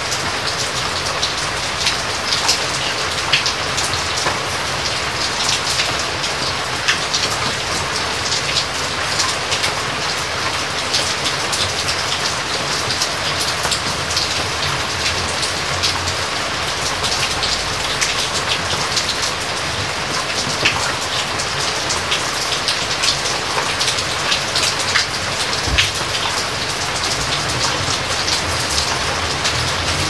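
Steady rain falling, with many individual drops ticking close by. A low rumble swells briefly about halfway through.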